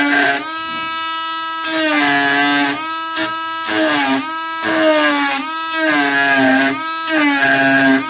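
Dremel Stylo rotary tool running on high with a carving bit, a steady whine cutting whisker lines into hardwood in short repeated strokes. The pitch sags a little each time the bit bites into the wood and recovers between strokes: the tool bogging under load in the hard wood.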